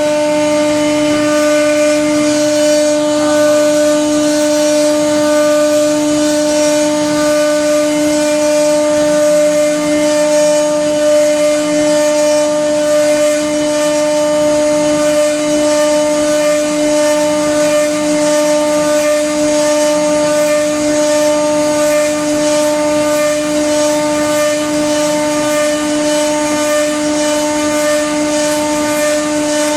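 CNC router spindle running at a constant speed, a steady unchanging whine over a hiss of cutting and air.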